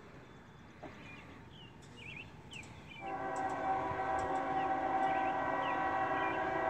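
Diesel locomotive's multi-chime air horn on CSX train M372, sounded for the crossing as the train approaches from a distance. It gives one long, steady chord blast of about four seconds, starting about three seconds in.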